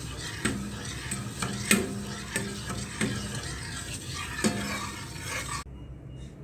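A spoon stirring in a container, clinking against its side about six times over a steady hiss; the sound cuts off suddenly near the end.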